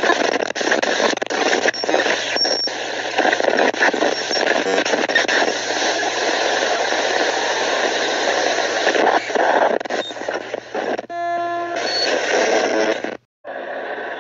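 Loud, harsh radio-style static crackling over a steady low hum, broken about eleven seconds in by a brief electronic tone, then cutting off suddenly near the end.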